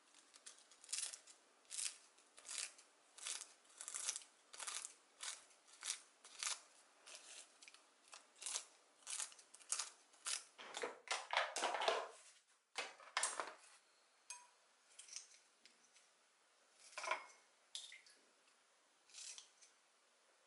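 Kitchen scissors snipping a sheet of dried roasted seaweed (gim) into strips, a crisp cut about one and a half times a second, with a denser crackling run a little past halfway. The snips thin out to a few scattered ones near the end.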